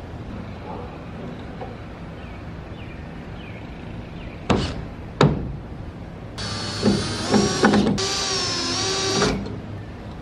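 Power drill running in wood on the platform's wooden framing, its motor whine lasting about three seconds with the pitch wavering and dipping under load and a brief break midway. Two sharp knocks come just before it.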